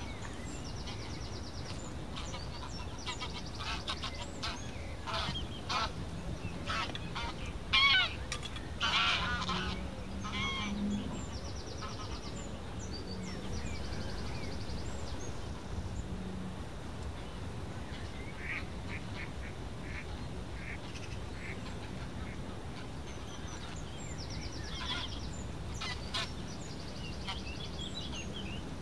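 Greylag geese honking as they fly over, their calls coming in scattered bursts that are loudest about eight to ten seconds in, with further calls later on.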